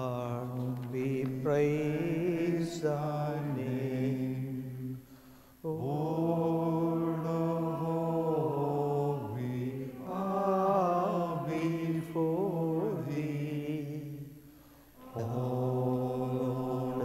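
Slow sacred singing in long held phrases, the voice wavering with vibrato, breaking off briefly about five seconds in and again about fourteen seconds in.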